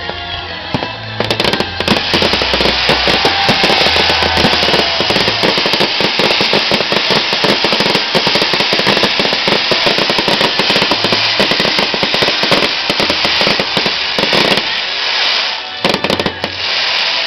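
Fireworks crackling: a dense, rapid barrage of small bangs that starts about a second in, breaks off sharply near the end and returns in a short flurry. Music with a bass line plays underneath.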